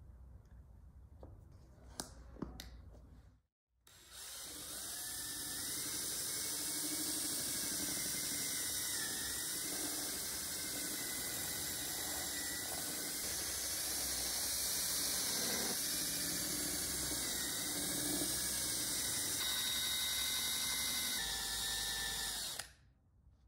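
A few faint handling clicks, then a small electric power tool runs steadily with a loud hiss and a faint whine whose pitch dips now and then, as if taking load, before cutting off near the end.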